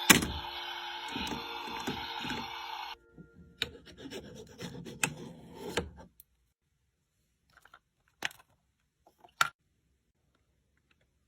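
Background music that stops about three seconds in, followed by a few seconds of irregular scraping and rubbing, then near silence with a few sharp clicks.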